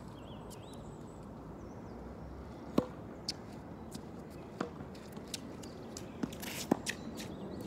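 Tennis rally: sharp pops of a tennis ball struck by rackets, the two loudest about four seconds apart, with softer bounces between them. Faint bird chirps near the start.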